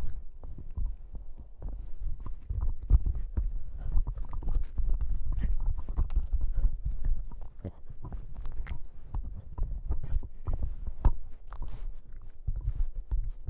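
Boston Terrier puppy chewing and mouthing a microphone, heard right at the mic: a continuous low rumbling handling noise broken by many irregular clicks and knocks of teeth and jaw on the mic.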